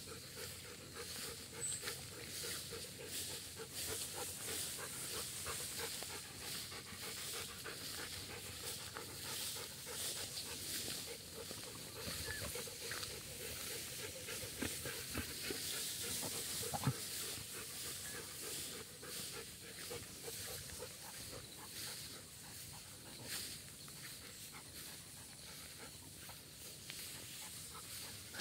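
A dog panting steadily, with tall grass rustling and swishing as it is walked through, and one brief snap a little past the middle.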